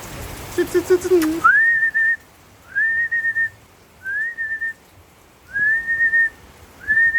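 Rain hiss, then from about a second and a half in a whistle call repeated five times, a little over a second apart: each rises in pitch and is then held with a slight warble.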